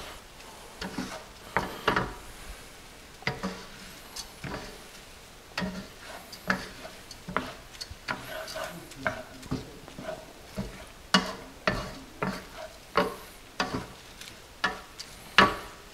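Spatula stirring and scraping Arborio rice and diced tomatoes around a hot sauté pan in short, irregular strokes about one or two a second, with a faint sizzle underneath. The rice is being toasted in the pan juices before the liquid goes in.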